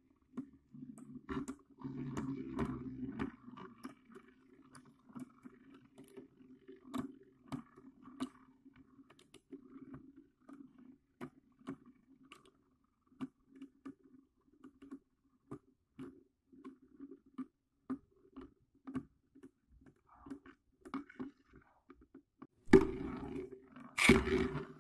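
Homemade spinning tops, one made from a bottle cap and one from a ball bearing, spin and scrape around a plastic stadium bowl. Frequent sharp clicks come as they knock into each other and the rim, and the rattle grows more broken later on. Near the end a hand reaches into the bowl with a couple of loud knocks and rubbing.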